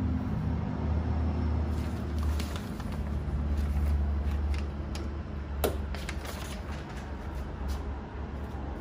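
Pit Boss smoker running with a low steady hum, with scattered light clicks and one sharp click about halfway through.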